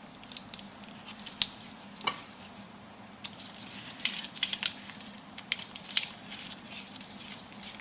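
Light, irregular clicks and taps of small tools and plug parts being handled while a 16 A power plug is wired up.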